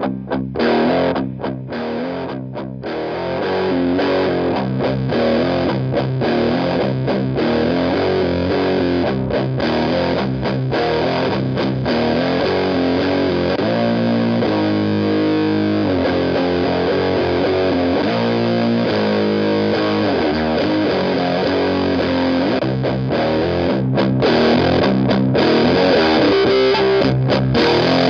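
Electric guitar played through a Walrus Audio Iron Horse LM308 distortion pedal: distorted chords and riffs, with several abrupt muted stops in the first few seconds and longer held chords in the middle.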